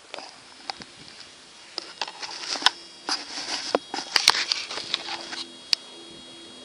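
Camera handling noise: an irregular flurry of clicks, knocks and rubbing against the microphone for about five seconds, then only a faint steady hum.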